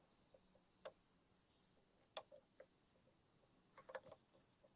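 Near silence broken by a handful of faint, scattered clicks, about a second in, twice a little after two seconds, and a small cluster near four seconds.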